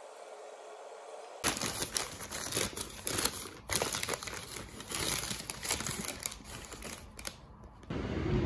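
Brown paper bag crinkling and rustling as a hand rummages inside it: a dense, irregular run of crackles that starts about a second and a half in and stops shortly before the end.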